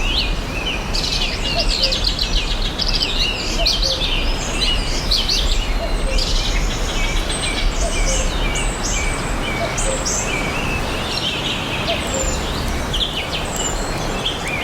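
Dense chorus of small songbirds chirping and trilling continuously, many overlapping calls, over a steady background hiss of noise.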